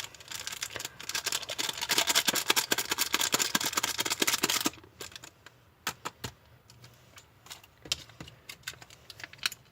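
A plastic seasoning packet crinkling and rattling as its contents are shaken out over instant noodles. The dense crackle stops a little over halfway through, leaving a few scattered light clicks and taps.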